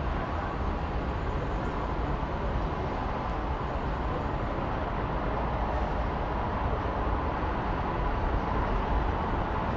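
Steady outdoor city ambience: an even rumbling noise with no distinct events and no clock chimes or bells.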